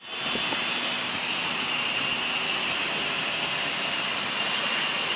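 Steady rushing outdoor background noise with a high hiss, unchanging throughout.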